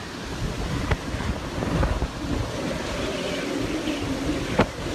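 Hurricane-force wind and driving rain rushing steadily, with wind buffeting the microphone and a faint wavering low howl. Two sharp knocks stand out, about a second in and near the end.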